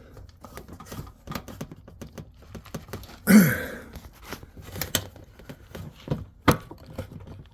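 Rubber fuel-injection hose being worked by hand onto a barbed fuel pipe: scattered small clicks, taps and rubbing. About three seconds in there is a short louder sound that quickly falls in pitch, like a grunt, and a sharp click comes near the end.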